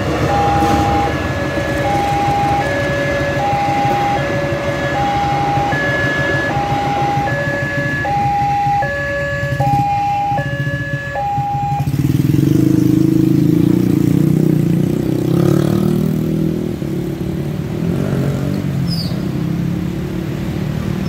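Railway level-crossing warning alarm sounding an electronic two-tone chime, high and low tones alternating evenly, over the low rumble of a passing train. The alarm stops about twelve seconds in, and motorcycle and car engines rev as traffic moves off across the tracks.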